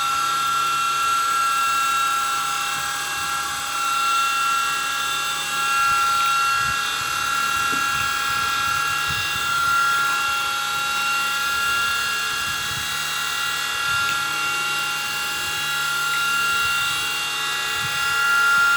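Micro RC helicopter's small electric motor and rotor whining steadily in flight, a high-pitched whine that gently swells and fades as it flies.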